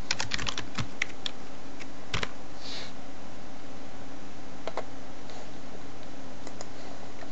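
Typing on a computer keyboard: a quick run of keystrokes in the first second or so, then a few scattered clicks, over a steady hiss.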